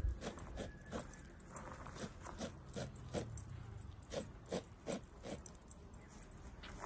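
A knife chopping fresh green herbs on a cutting board in a run of short, crisp cuts, about two to three a second with brief pauses.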